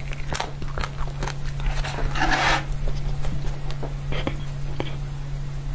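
Close-up mouth sounds of biting and crunching a crisp chocolate topping, with a denser burst of crunching about two seconds in, followed by small clicks as a metal spoon works at a hard chocolate cupcake. A steady low hum runs underneath.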